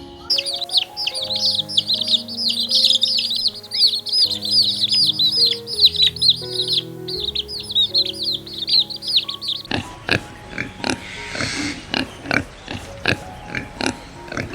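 A crowd of small birds chirping rapidly and overlapping, over background music with held notes. About ten seconds in the chirping stops abruptly and an animal makes a series of short, rough grunting sounds, several a second.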